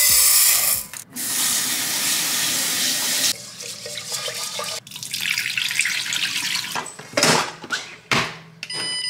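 Dry rice poured into a metal rice-cooker pot, then tap water running into the pot and rice swished by hand as it is rinsed. A few knocks near the end as the pot is set into the electric rice cooker and the lid shut.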